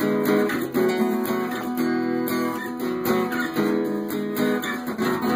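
Guitar strummed in steady chords, an instrumental stretch of a folk-pop love song with no singing.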